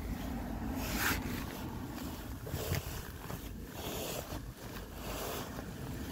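Wind buffeting the phone's microphone, a steady low rumble, with a few brief handling scrapes along the way.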